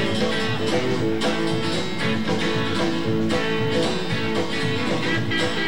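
Live country band playing the instrumental opening of a truck-driving song, with a strummed acoustic guitar and an electric guitar in a steady rhythm.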